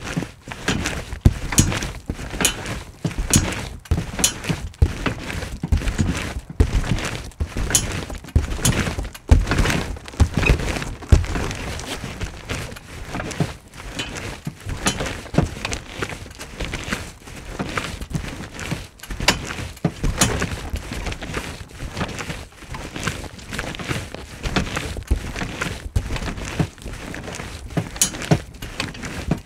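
Someone jumping on a squeaky bed: irregular thumps with bedspring creaks, a few times a second.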